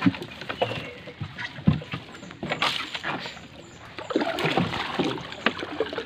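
Water splashing and sloshing around a small boat with bamboo outrigger poles, with scattered irregular knocks and taps.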